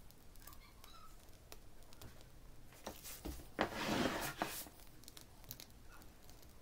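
Plastic piping bag of whipped cream crinkling and rustling as it is handled and squeezed, loudest for about a second a little past the middle, with faint light clicks around it.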